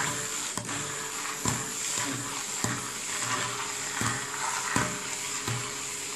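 Hand-held immersion blender running steadily in a glass bowl, puréeing boiled potato with yogurt and oil into a thick sauce, with low thumps about once a second.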